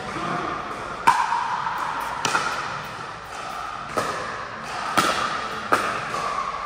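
A pickleball rally: five sharp pops of paddles hitting the plastic ball, about a second apart, each ringing briefly in a large hall.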